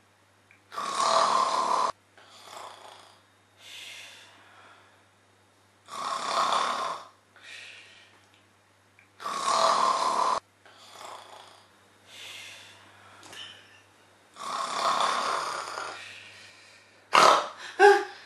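A person snoring heavily in sleep: four loud snores a few seconds apart, with fainter breaths between them, and a couple of short, sharp sounds near the end.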